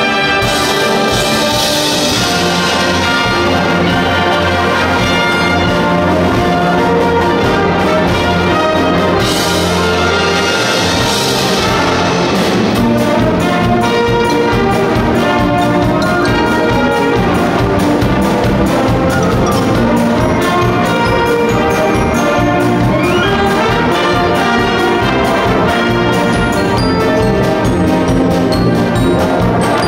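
Japanese high-school wind band (brass, woodwinds and percussion) playing a Disney medley: full-band held chords over a deep bass line, then about twelve seconds in the drums take up a steady beat under the brass and flutes.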